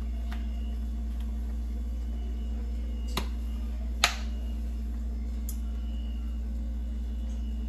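Plastic screw cap on a carton of heavy whipping cream twisted open with two sharp clicks, the louder one about four seconds in, over a steady low hum.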